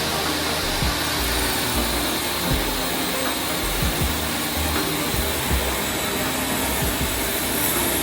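A woodworking power tool running steadily, a dense whooshing hiss, with a few short low thumps through it.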